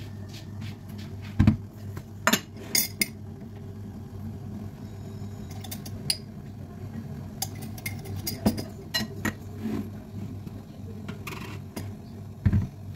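Kitchen handling sounds: a metal teaspoon clinking against a glass mug and a stainless-steel milk frother jug being picked up and set down on the countertop, giving a scattered series of sharp clinks and knocks. The loudest knocks come about a second and a half in and near the end, over a steady low hum.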